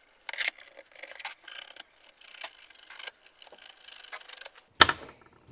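Pencil scratching on a black walnut board in short, light strokes while tracing an outline, with a single sharp knock near the end.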